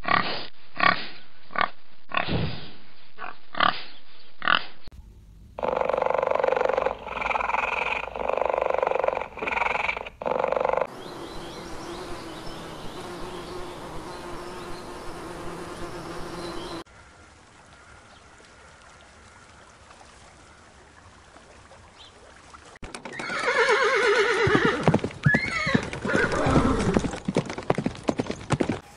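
A run of separate animal recordings: wild boar piglets grunting and squealing in short repeated calls, then a honeybee's steady buzz, and near the end horses neighing loudly in falling whinnies over dense hoof beats.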